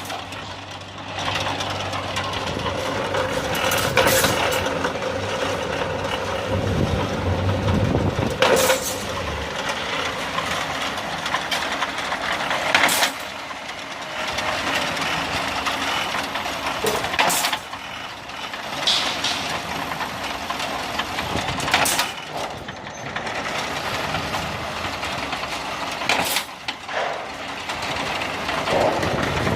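Single-phase 220 V automatic iron-cutting machine running, its motor humming steadily, with a sharp clank about every four and a half seconds, six in all, one for each cutting stroke.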